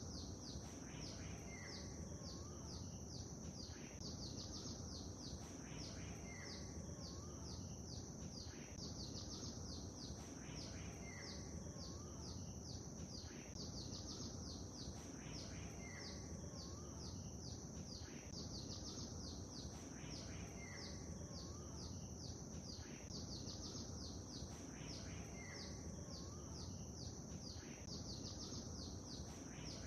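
Small songbirds chirping and twittering in quick high notes, with a lower whistled call among them, over a steady background hiss. The same pattern of calls repeats about every five seconds, like a loop.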